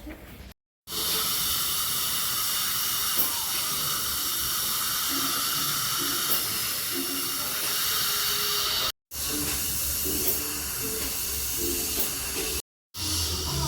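A steady, loud hiss, broken twice by abrupt cuts to silence.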